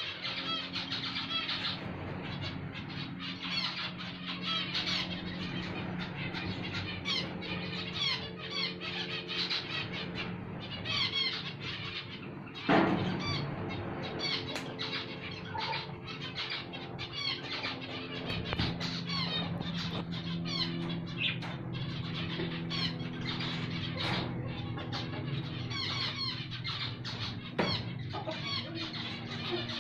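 Small pet birds chirping rapidly and without a break, over background music with long held notes. A sharp knock comes about thirteen seconds in, and a smaller one near the end.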